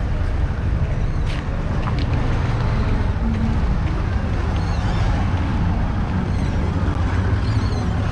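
Steady low rumble of busy street traffic, vehicle engines running, with a few faint high chirps about halfway through and near the end.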